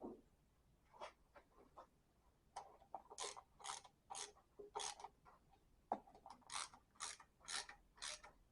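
Faint ratchet wrench worked in short back-and-forth strokes, about two clicking swings a second, running bolts in.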